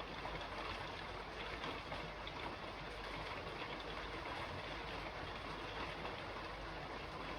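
Steady rain falling on a roof: an even hiss with faint scattered ticks of drops.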